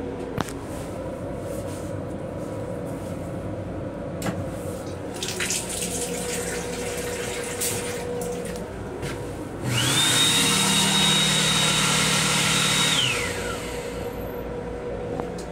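Restroom hand dryer blowing for about three and a half seconds, with a steady high motor whine that drops away as it stops, after a short run of water from the sink faucet. Beneath it the M7 railcar's steady running hum.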